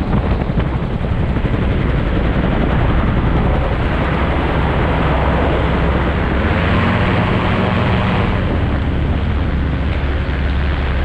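Light aircraft engine and propeller running steadily, with wind rushing over the microphone in the open cockpit. The low engine note grows stronger about six and a half seconds in.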